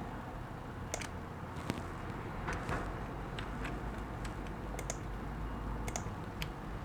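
Scattered, irregular clicks of a computer mouse and keyboard being worked, about ten over several seconds, over a steady low hum.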